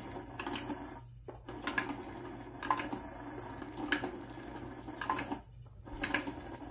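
Battery-powered Pop n Play cat toy's motor whirring as it spins the feather wand around inside the plastic dome, so the wand pops out of the holes in turn. The motor runs in spurts with brief stops, about a second in and again near the end, and gives sharp clicks about once a second.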